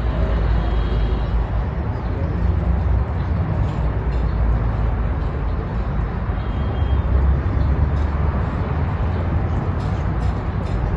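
Steady motor-vehicle rumble and road noise, low and continuous throughout.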